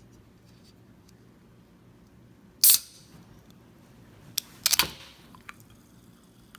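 A Sprite soda can's ring-pull cracking open with one sharp, loud snap and a short fizzing hiss about two and a half seconds in. About two seconds later comes a quick cluster of sharp clicks and knocks, followed by a brief fizz.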